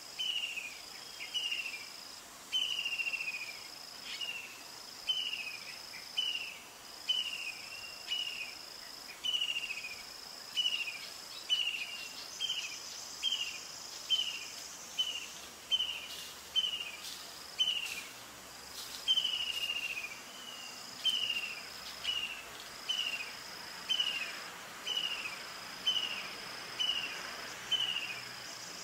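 Forest insect chorus: a high, steady buzz that breaks off every second or two, under short falling chirps repeated a little more than once a second.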